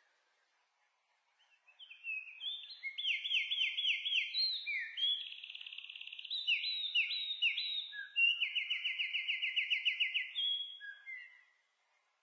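A songbird singing one long, varied song: runs of quickly repeated chirps and fast trills, switching to a new phrase about every second. It starts about two seconds in and stops near the end.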